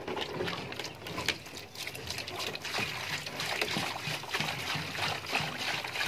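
Water pouring from a plastic jerry can into a shallow plastic trough, a steady splashing stream that grows a little louder as it goes on.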